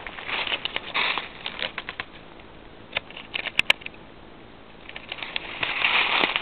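Footsteps in dry fallen leaves, a rustling crunch with each step. The walking pauses for a couple of seconds in the middle, with a few sharp clicks, then starts again near the end.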